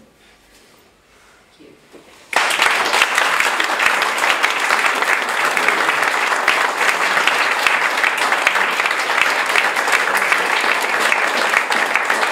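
Audience applauding, breaking out suddenly about two seconds in after a short quiet and holding steady at the end of a poetry reading.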